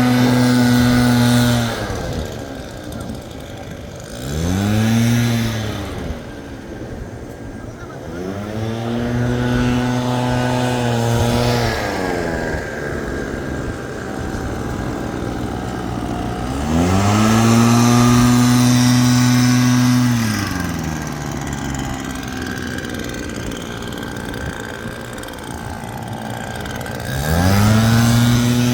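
Gas leaf blower engines throttled up to full speed and back down again and again. Each burst is held for a few seconds, with a short one near the start, and a steady rushing sound carries on between them.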